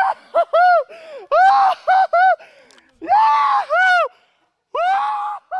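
A high-pitched voice giving a run of short squeals and whoops, each cry rising and then falling in pitch, in bursts with brief gaps between.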